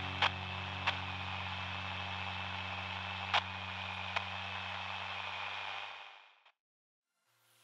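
Steady hiss of forest ambience with a faint high, even tone and a low hum underneath, broken by four sharp clicks in the first few seconds. It all fades away about six seconds in, leaving silence.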